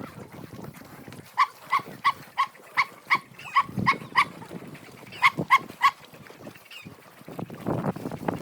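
Dog barking in a quick run of short, high barks, about three a second, then three more barks after a short pause.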